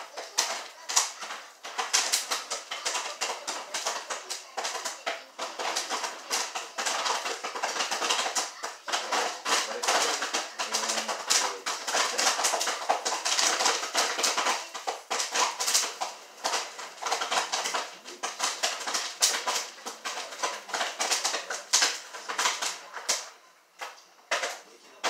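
Jiffy Pop popcorn kernels popping in the foil pan on the stove: a dense, irregular crackle of sharp pops that thins out briefly near the end.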